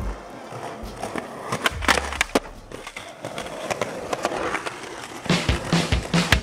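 Skateboard wheels rolling on concrete, with sharp clacks of the board hitting the ground: a few about two seconds in and a quick cluster near the end.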